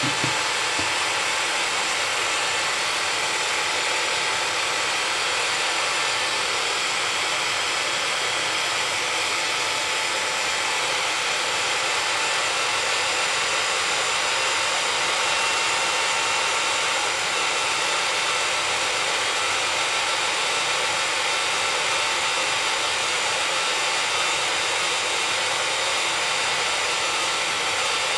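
Hot air rework gun blowing steadily onto a phone mainboard to heat off a plastic battery connector: an even airy hiss with a faint steady whine.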